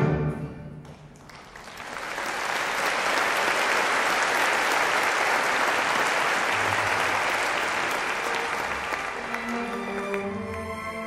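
Audience applauding after a live orchestra's closing chord: the chord dies away in the first second or so, the clapping swells up and holds steady, and near the end the orchestra starts playing again as the applause thins.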